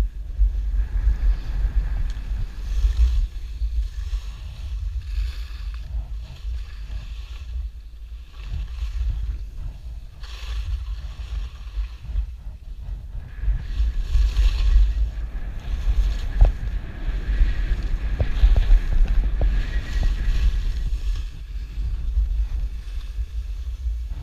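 Wind buffeting the microphone of a camera carried by a skier on the way down, a deep steady rumble, with skis hissing and scraping over packed snow in swells every few seconds as they turn.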